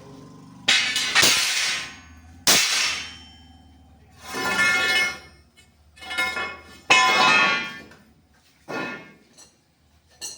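Steel angle pieces clanging and ringing as they are struck and handled, about seven or eight irregular metallic clangs with ringing tails.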